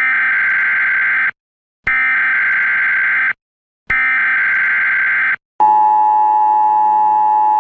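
Emergency Alert System tones: three bursts of SAME header data tones, each about a second and a half with short gaps between, then the steady two-tone EAS attention signal, which starts after the third burst and holds.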